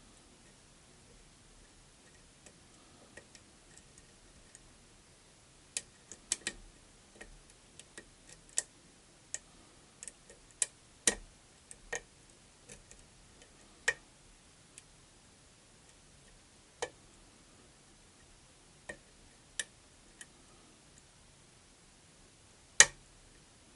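Lock picking: a metal pick and tension tool working inside a challenge lock, making irregular sharp metal clicks as the pins are raked and set. The clicks come thickest through the middle, with one louder snap near the end. This is the snap-and-crackle of a lock whose pins give no clear feedback to the pick.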